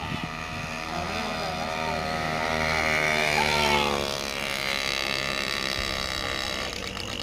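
Motorcycle engines running at speed, getting louder about halfway through and then easing off.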